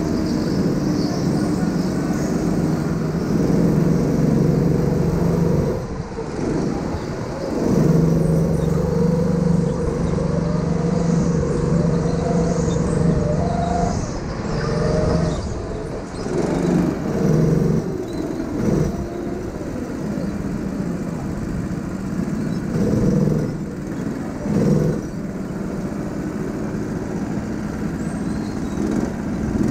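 Go-kart engine running hard under the driver, its pitch dropping and picking up again several times as the kart brakes and accelerates through the corners.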